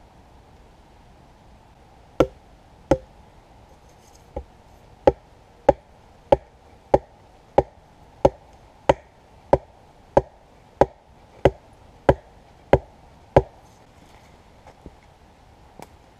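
Wooden pole (a walking stick) being hammered upright into the forest floor: about seventeen sharp wooden knocks, two, then after a short gap a steady run of about three blows every two seconds, which stops a few seconds before the end.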